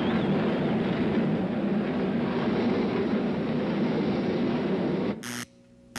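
Many engines running together as a steady roar. It cuts off abruptly about five seconds in, and a short burst of noise follows.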